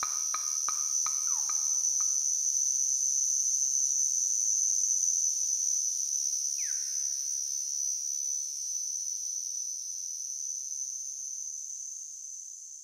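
A steady, high-pitched cricket-like insect trill. Pitched ticks at about three a second die away in the first two seconds, and two short falling whistle-like glides come near the start and about halfway through. The whole sound fades out near the end.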